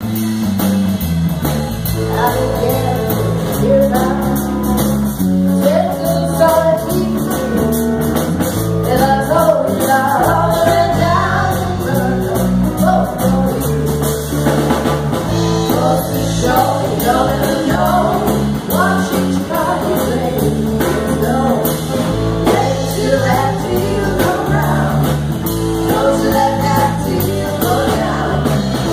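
Live band playing a song: women singing into microphones over guitar and a drum kit.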